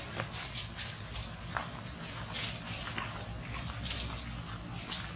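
Baby long-tailed macaque giving soft cries, a string of short, high squeaks at irregular intervals.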